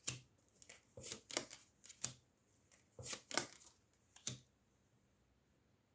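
Tarot cards being handled on a table: a run of short card slaps, flicks and rustles as cards are drawn and laid out, stopping about four and a half seconds in.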